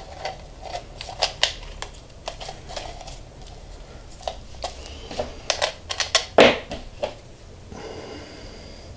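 Irregular clicks, clinks and knocks of metal pipe fittings being handled and test-fitted on a workbench: a rusty iron tee and bushing against an air compressor's pressure-switch manifold with its brass fittings. A louder knock comes about six and a half seconds in.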